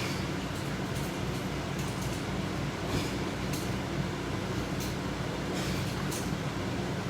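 Steady low hum and hiss of machine-like background noise, with a few faint clicks scattered through.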